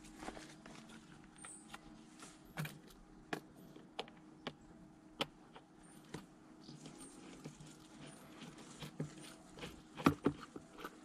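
Screwdriver working the screws of a plastic air filter housing: scattered small clicks and taps of metal on plastic, with a cluster of louder knocks near the end.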